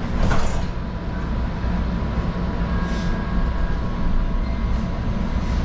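Light-rail train car heard from inside while riding: a steady low rumble with a faint steady whine and a few brief rattles.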